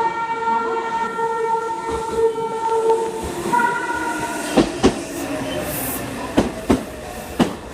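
Meitetsu train's musical warning horn, the 'dokeyo horn', holding a steady note for about three seconds, with a short second note a little later. Then wheels clack over rail joints, two quick pairs and a single click.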